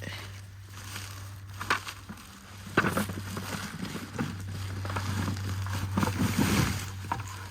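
Apple picking by hand: rustling with scattered knocks as apples are handled and dropped together, a few sharp clicks at first, then busier handling from about three seconds in.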